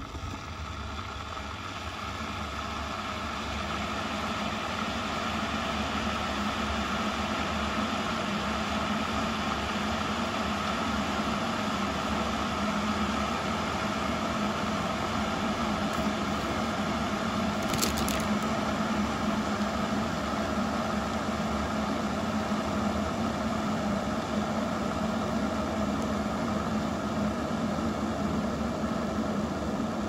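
Midea MK-12S03E stainless-steel electric kettle heating a small amount of water: a steady rumbling hiss that grows louder over the first few seconds, then holds. A brief tick partway through.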